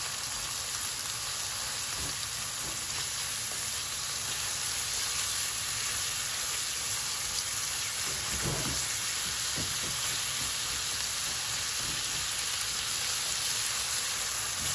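Sliced onions sizzling steadily in hot oil in a nonstick wok, stirred with a slotted spatula, with a few light knocks of the spatula against the pan.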